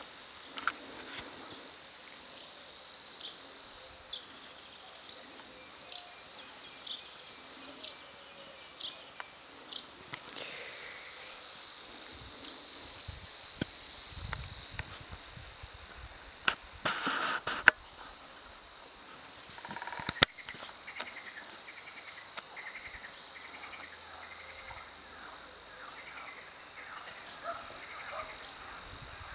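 Marsh ambience: a steady high-pitched trill, like an insect chorus, runs throughout, with scattered bird chirps and calls over it. About 17 seconds in comes a loud rustle, and a sharp click follows a few seconds later.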